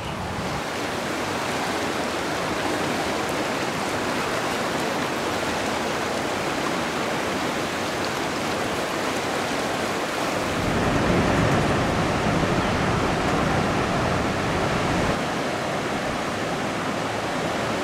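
Fast river water rushing over rocks and rapids: a steady wash of noise that grows a little louder and fuller about ten seconds in.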